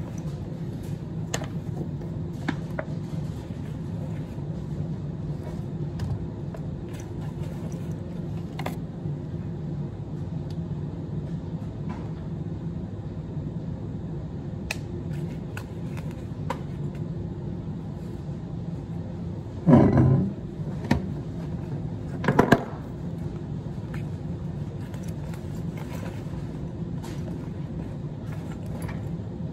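Steady low room hum with scattered light clicks and rustles of a backpack and small belongings being handled, and two louder rustling knocks, about twenty and twenty-two seconds in.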